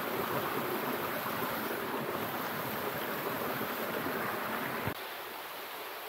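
Rushing water of a rocky mountain stream, a steady noise that drops suddenly in level, losing its low rumble, about five seconds in.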